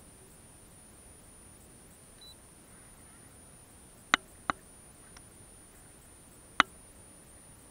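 Three sharp clicks: two close together about four seconds in and a third about two seconds later, over a faint, steady, high-pitched whine.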